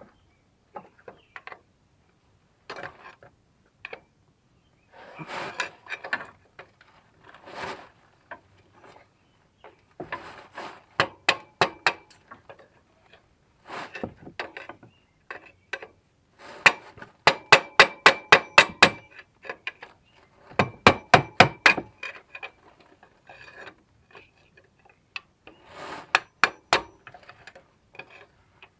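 Hammer blows on a steel punch or bar set against the rusted A/C compressor clutch plate hub, struck in several quick runs of about five or six blows a second, working the stuck clutch plate loose. Between the runs the tool scrapes against the clutch hub.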